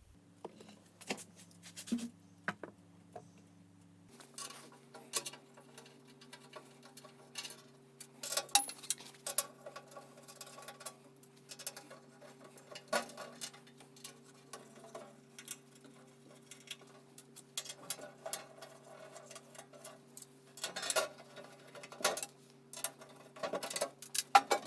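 Scattered clicks, ticks and metallic rattles of the screws being taken out of the sheet-metal back cover panel of a Ridgid R4512 table saw, over a faint steady hum. The sharpest click comes near the end.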